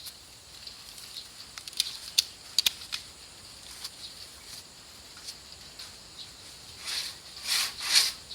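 Scattered light clicks and knocks, then three short rasping strokes of a hand saw cutting into an ironwood (ulin) beam near the end.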